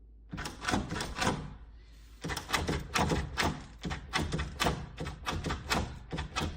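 Interior passage door lever handle being worked, its latch clicking and knocking in quick clusters of several sharp clicks a second.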